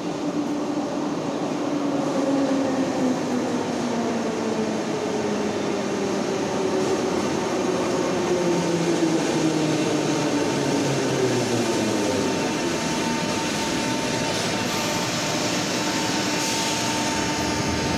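Metro train pulling into the station, its whine falling steadily in pitch as it slows over about twelve seconds. It then stands stopped at the platform with a steady hum, and there is a short hiss and a few clicks near the end.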